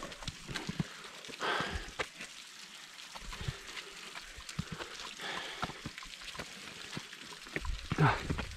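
Hikers scrambling up granite ledges, with scattered scuffs and knocks of boots and hands on the rock. Three heavy breaths or grunts of effort come a few seconds apart.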